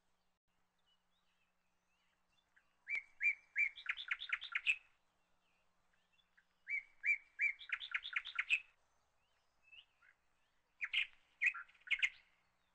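A bird singing three short phrases, each a few separate notes running into a quick trill.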